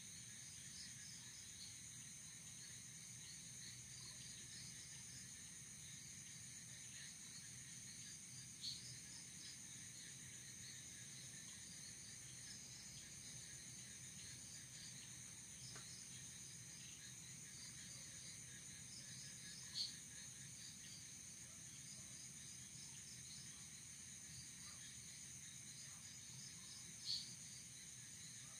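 Crickets and other night insects trilling steadily, high-pitched and faint, with a scatter of short chirps. Three louder single chirps stand out, about a third of the way in, about two-thirds in, and near the end.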